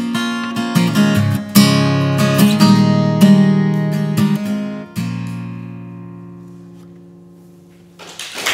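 Solo acoustic guitar playing the closing bars of a song, picked and strummed, ending on a final chord about five seconds in that rings and slowly fades away. Applause starts just before the end.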